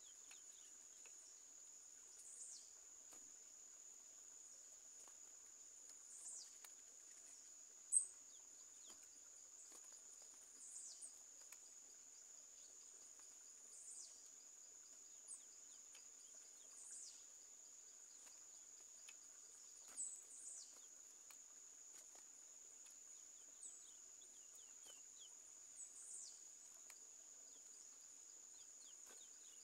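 An insect's steady high-pitched trill runs throughout, with a bird's short downward-sliding call note about every three to four seconds. A single sharp click about eight seconds in is the loudest sound.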